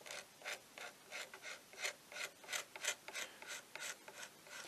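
Steel card scraper drawn in short strokes over the old wooden handle of a Disston handsaw, about three scraping strokes a second, taking off grime and worn lacquer.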